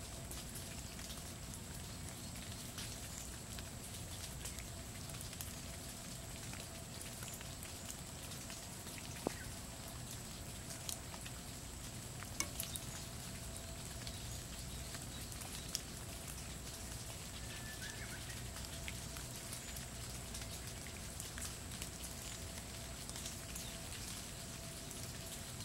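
Steady rain falling on hydrangea leaves and a wet stone path, a soft even hiss with scattered louder drips, a few of them sharp, between about nine and sixteen seconds in. A thin steady high tone sits behind it.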